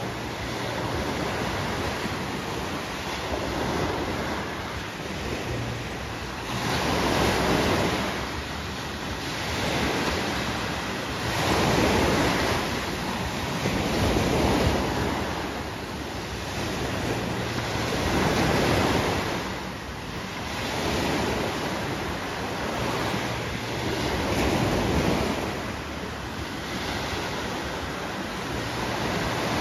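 Small sea waves breaking and washing in along the shore, the surf swelling and fading every few seconds.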